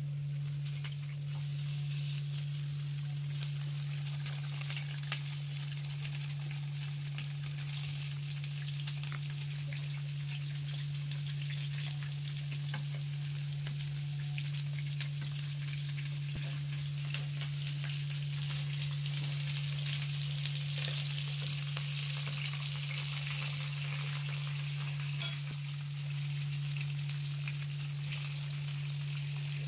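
Potato and onion slices frying in a ridged grill pan: a steady sizzle full of small crackles and pops. A single sharp click sounds about 25 seconds in. A steady low hum runs underneath.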